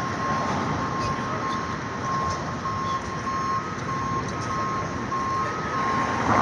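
A repeating electronic beep at a steady high pitch, about two beeps a second, over a steady hiss of traffic-like street noise.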